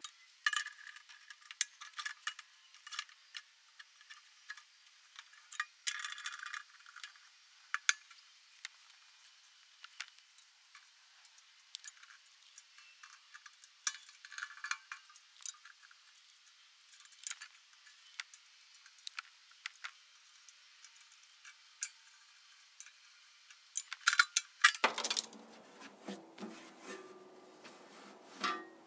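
Scattered metallic clinks and clanks of a welded steel battery box being set against a mower frame and clamped with locking pliers, with a cluster of louder clanks near the end.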